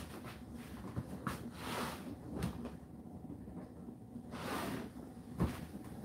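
Whirlpool dishwasher in its main wash: water spraying and sloshing inside the tub in irregular swooshes over a steady low hum of the wash pump, with a few knocks, the loudest about five and a half seconds in.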